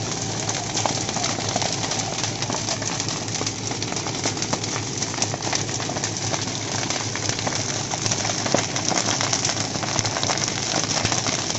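A brush fire burning close by, crackling and popping continually in the dry vegetation, with the hiss of a hose jet spraying water into the flames.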